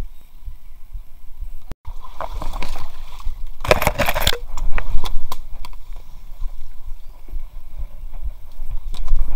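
Water sloshing and splashing around an inflatable kayak as the paddler climbs out into the shallows at a muddy bank, with the loudest splash about four seconds in. Scattered knocks and rustles follow.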